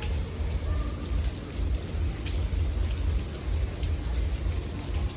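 Steady rain falling, with scattered drops ticking sharply over an even hiss and a constant low rumble underneath.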